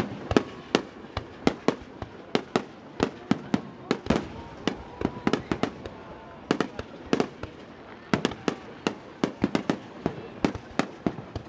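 Fireworks display: a rapid, irregular series of sharp bangs from bursting fireworks, about three or four a second.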